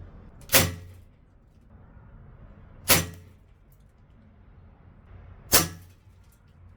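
Umarex Walther P99 DAO CO2 blowback airsoft pistol firing three single shots, each a sharp crack about two and a half seconds apart.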